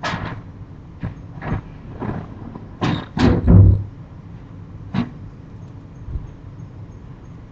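A string of sharp knocks and bangs, about seven in the first five seconds, from someone banging repeatedly. The loudest is a deep, heavy bang about three and a half seconds in, just after two quick knocks.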